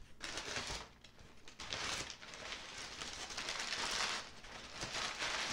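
Crumpled brown packing paper rustling and crinkling as it is pulled out of a cardboard box, in uneven bouts with short lulls.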